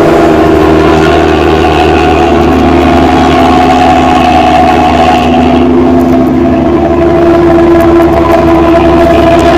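A Luragung bus's modified 'ngorok' (snoring) exhaust running very loud: a steady deep drone with held tones on top that shift pitch a couple of times, around a third and two-thirds of the way through.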